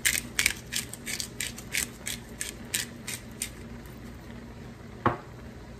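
Pepper grinder being twisted over a pan, a quick run of short ratcheting clicks, about three to four a second, that stops about three and a half seconds in; then a single knock near the end.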